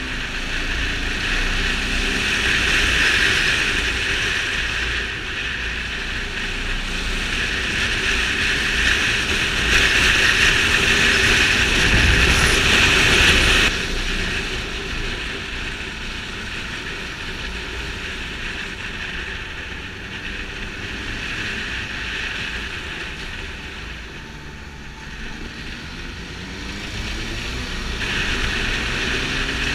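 Ducati Multistrada 620's air-cooled V-twin engine running under a climbing ride, mostly buried in wind rush on the microphone. The wind noise swells and fades with speed and drops sharply about halfway through, and the engine revs rise near the end.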